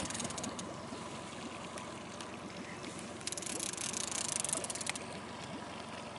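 Fishing reel whirring with a fine, rapid clicking in a burst from about three to five seconds in, as line is worked on a hooked fish. Under it, water lapping steadily against the small boat.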